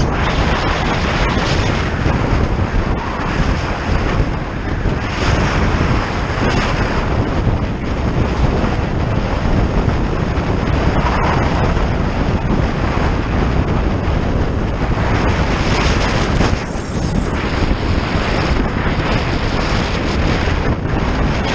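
Wind rushing over the microphone of a camera on a moving bike: a loud, steady rushing noise that swells and dips with the rider's speed, easing briefly near the end.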